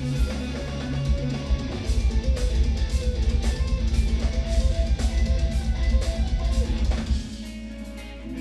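Instrumental progressive metal played live by a band of eight-string electric guitars and drum kit: dense guitar riffing over rapid low drum hits, which drop away suddenly about seven seconds in, leaving quieter ringing guitar notes.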